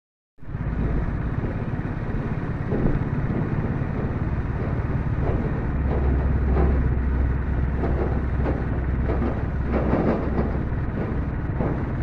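A motor vehicle's engine running steadily while driving, heard from on board, a low hum under road and wind noise. It comes in suddenly just under half a second in.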